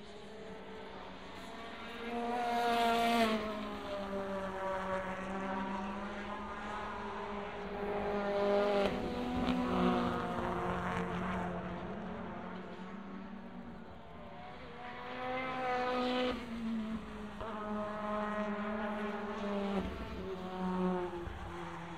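2014 WTCC touring cars, with 1.6-litre turbocharged four-cylinder engines, passing one after another through a corner. Each engine note rises and falls as the drivers lift and get back on the throttle. The loudest passes come about three, ten and sixteen seconds in, with another near the end.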